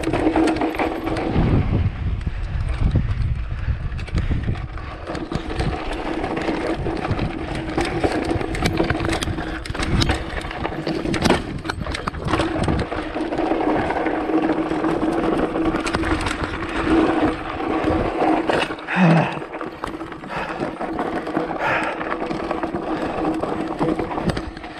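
Mountain bike ridden over a rough dirt trail: tyre and rattle noise with many small knocks and clicks, over a steady buzzing tone.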